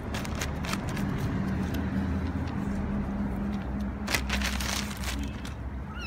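Crinkling and crackling of a plastic bag with small scattered clicks as kittens push and nose at it, with a louder rustle about four seconds in, over a steady low mechanical hum. A kitten gives a tiny meow at the very end.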